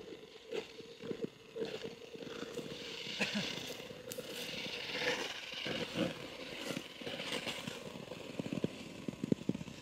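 Ice skate blades gliding and scraping over natural lake ice as a skater strides in, with a denser run of short clicks and scrapes near the end as he slows.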